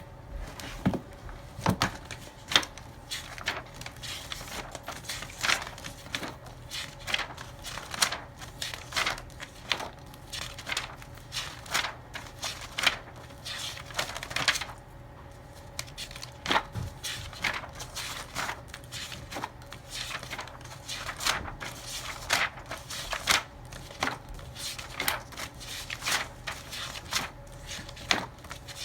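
Irregular sharp clicks and taps, a few a second, over a steady low hum.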